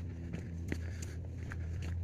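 Running footsteps on a dirt trail, a sharp step about every half second, over a steady low rumble.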